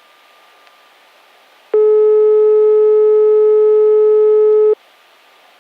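A single loud, steady electronic beep tone at one pitch, about three seconds long, starting about two seconds in and cutting off sharply, over faint hiss.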